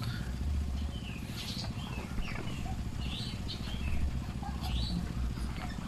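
Birds chirping, short high calls scattered every second or so, over a low, uneven rumble.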